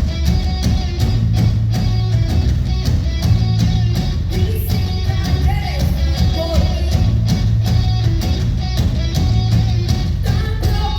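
A rock power trio playing live through a PA: distorted electric guitar, bass guitar and a drum kit hitting steady, regular beats. A sung or lead melody line comes in about halfway through.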